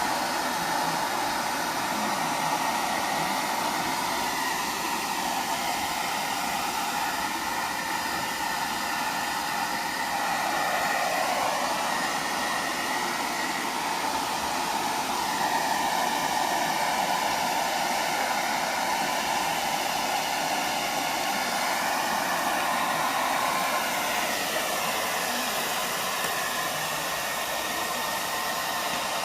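Hair dryer running continuously: a steady rush of air whose tone shifts slightly now and then.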